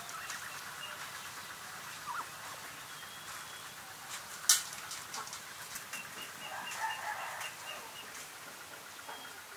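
Farmyard poultry calling in the background, with a run of high, evenly spaced peeps a little past the middle. A single sharp click about halfway through is the loudest sound.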